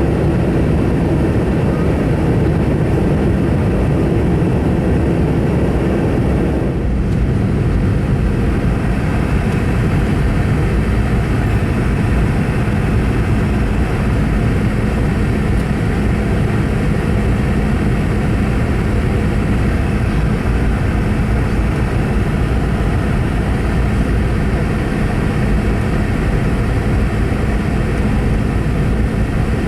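Airliner cabin noise inside a Boeing 717 in flight: a steady rush of engine and air noise. About seven seconds in, the higher part of the rush drops off suddenly, leaving a lower, steadier hum with a faint held tone.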